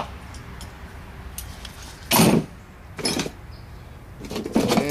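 Metal parts and tools clanking and scraping during a transmission teardown: a loud scrape about two seconds in, another knock about a second later, then a few light clicks near the end.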